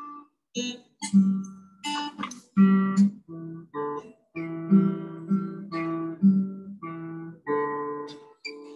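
Acoustic guitar picking out the melody of a waltz, plucked notes and small chords with short pauses between them, played slowly by a learner.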